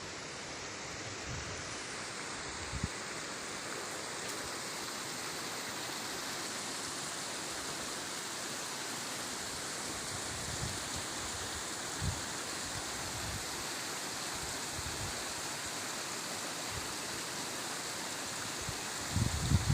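Steady rush of a river or stream flowing, with a few brief low thumps on the microphone, the loudest near the end.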